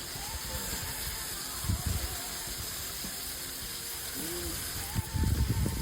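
Irrigation water spraying with a steady hiss and rush, with a few low thumps near the end.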